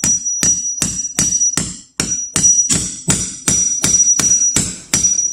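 A hammer repeatedly strikes the steel head of a Milwaukee 10-inch cat's paw nail puller, about three blows a second, driving its claw under an old nail head in a wooden deck board. Each blow leaves a high metallic ring.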